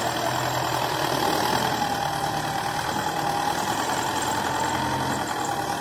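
Belarus 510 tractor's diesel engine running steadily under load as it pulls a tillage implement through a field.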